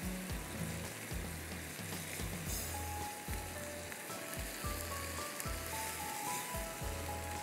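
Chopped tomatoes sizzling in hot oil in a wok, a steady frying hiss, under soft background music with a regular low beat and a light melody.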